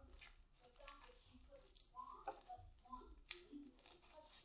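Slime being squeezed and kneaded in the hands: faint, sticky squishing with scattered small pops and clicks, the sharpest pop about three seconds in.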